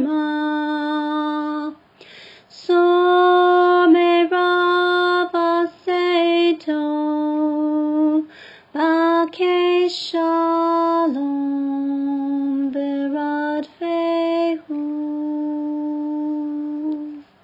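A woman singing Hebrew psalm verses, one voice alone in held notes that step up and down in pitch. Short breaths break the phrases about two seconds in and again about eight seconds in. The last long note stops near the end.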